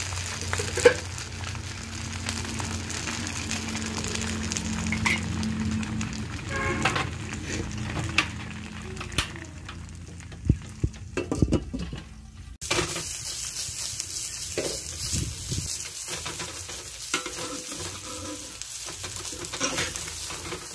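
Crispy rice-flour pancake batter sizzling in a hot wok, with scattered clicks and scrapes of a metal spatula against the pan. The sizzle changes abruptly just past halfway.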